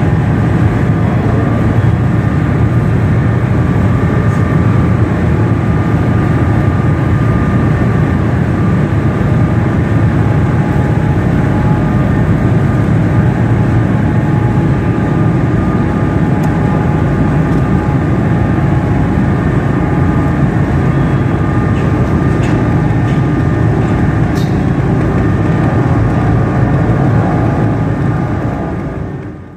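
Large car ferry MV Isle of Lewis running her engines while berthed: a steady deep rumble with a faint high whine over it, fading out at the end.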